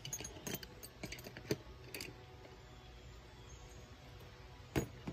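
Scattered light clicks and clinks of metal hand tools being handled, several in quick succession during the first two seconds and one more near the end.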